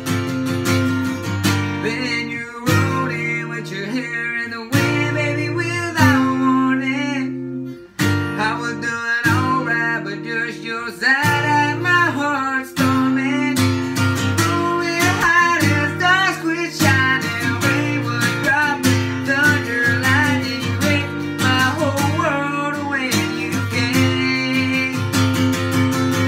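Male voice singing over a strummed steel-string acoustic guitar with a capo on the neck. The music breaks off for a moment about eight seconds in, then carries on.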